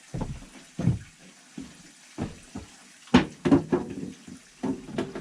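Water jugs being handled: a string of irregular knocks and clunks, the loudest a little past the middle, with water sloshing.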